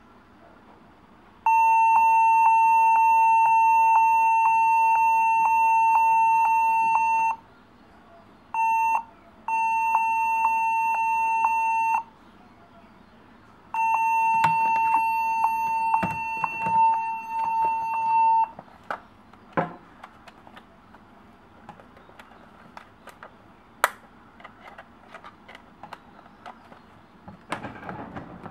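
Gateway laptop beeping continuously at startup, the boot-time fault being fixed: one steady high-pitched tone. It holds for about six seconds, stops, blips briefly, then sounds twice more for a few seconds each, ending about two-thirds of the way in. Scattered light clicks and taps follow, with handling knocks near the end.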